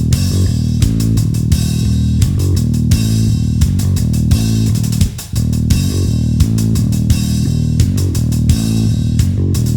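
Instrumental rock music: a heavy bass guitar line with guitar and drums on a steady beat, briefly dropping out about five seconds in.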